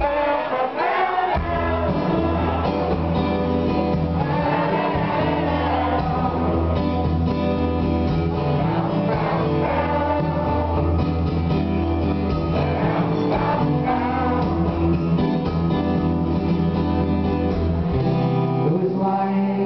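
A man singing live with a strummed acoustic guitar, amplified through the venue's PA. A heavy low end carries on under the song until it drops away near the end.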